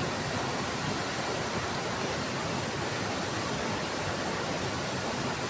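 Rushing river water: a steady, even rush with no rhythm or change.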